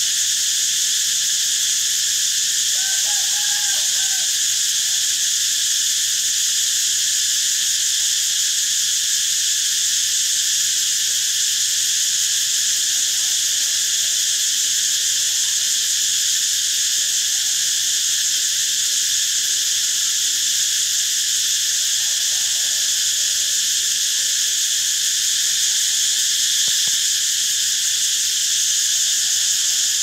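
Cicadas buzzing in one steady, unbroken high-pitched drone.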